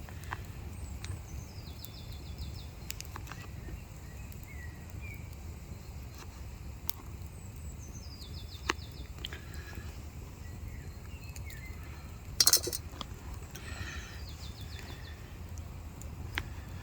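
Small birds singing short, fast trilled phrases three times, with a few lower chirps between them, over a steady low rumble of wind. Scattered sharp taps of a knife on a chopping board as potatoes are sliced, the loudest a knock about twelve seconds in.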